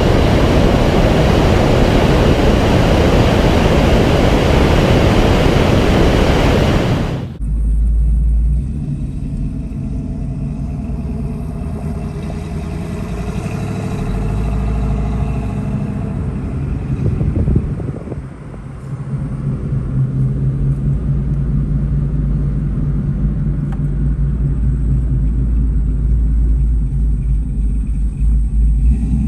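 A loud rushing noise for about the first seven seconds, cut off suddenly. Then car engines running with a low, steady hum that briefly rises and drops around the middle.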